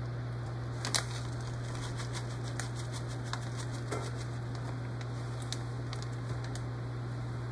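Cream stew simmering in a pot, with scattered pops and clicks over a steady low hum. A sharper knock comes about a second in.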